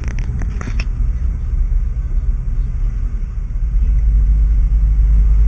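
Car driving at road speed, heard from inside the cabin: a steady low rumble of road and engine noise, with a few clicks in the first second, growing a little louder from about four seconds in.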